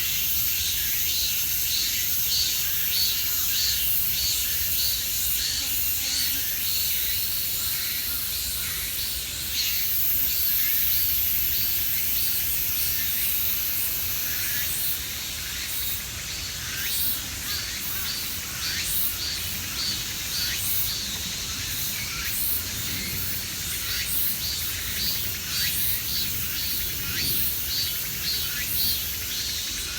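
Grass insects calling in chorus: a continuous high-pitched trill with many short chirps repeating a couple of times a second, mixed with birds calling. The high trill swells louder for a few seconds near the middle.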